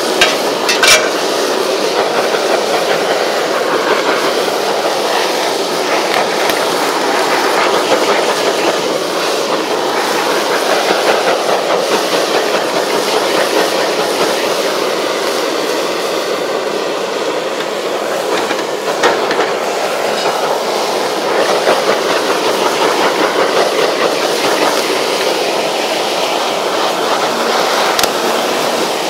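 Steady rushing hiss of a handheld butane blowtorch flame, with food sizzling on a hot flat-top griddle. A couple of sharp clicks come about a second in.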